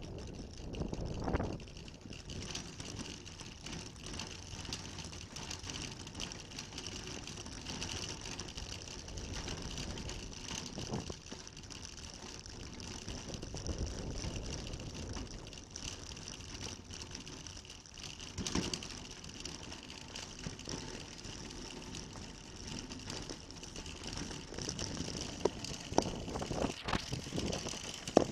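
Wire shopping trolley being pushed over car-park tarmac, its wheels rolling and the basket rattling with steady small clicks, a few louder knocks, and a louder clatter near the end.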